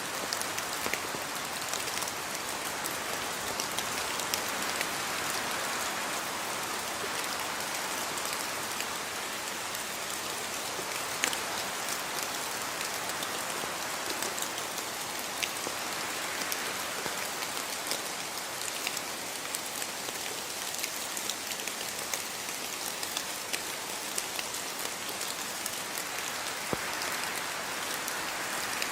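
Steady rain falling, an even hiss with many scattered individual drops ticking on a surface.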